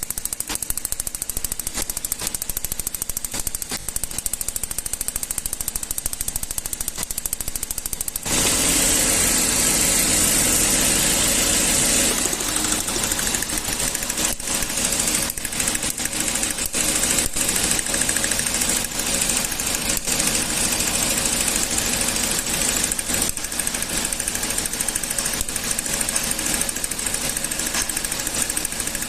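Toyota gasoline engine running with a rapid, strong ticking (tecleo, cascabeleo). About eight seconds in the engine sound turns suddenly louder and fuller for a few seconds, then settles with the ticking still going. The ticking is blamed on an ignition current leak at the coils, giving misfires.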